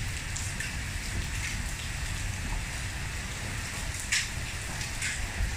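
Heavy thunderstorm downpour: a steady hiss of rain pouring onto a tiled pool patio, the pool and a screen enclosure, with a couple of sharper taps about four and five seconds in.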